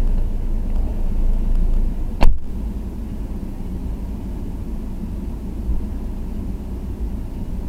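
Steady low rumble of a taxi's engine and road noise heard from inside the cabin, with one sharp knock about two seconds in.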